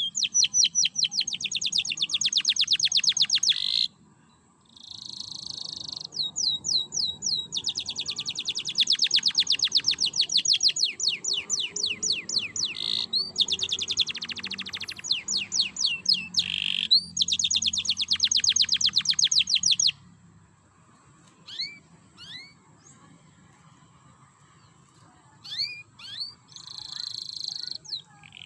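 Domestic canary singing the rapid trilled 'ngerek' song: long runs of fast repeated high notes broken by buzzy rattling phrases and slower swept notes. After about twenty seconds the song stops and only a few scattered single chirps follow.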